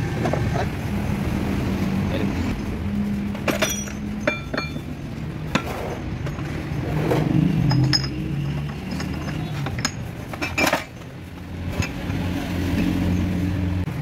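Steel gears and shaft of a Hino truck gearbox clinking and knocking against each other as the mainshaft assembly is handled and fitted together, about ten sharp metallic clinks, some ringing briefly, over a steady low hum.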